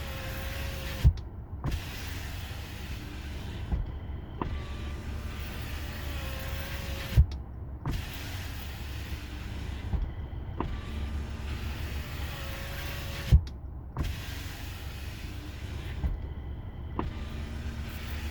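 Kia K5 power window running down and up about three times. The window motor whirs through each travel of about three seconds, and a sharp thud sounds at the end stop about every six seconds. The glass moves without the squeaking and gritty scraping it used to make, having been worn in by repeated cycling.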